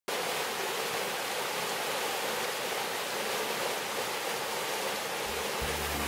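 Fast mountain stream rushing over bedrock in small cascades, a steady, even rush of white water. Low music notes come in near the end.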